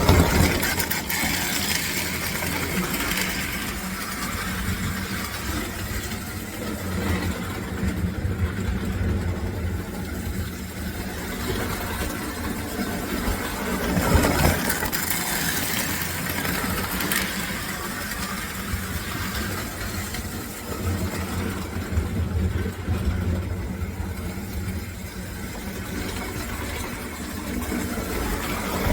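American Flyer 322 S-gauge toy steam locomotive running on layout track, pulling a short train: a steady motor hum and wheel rumble, with an occasional louder clack about halfway through.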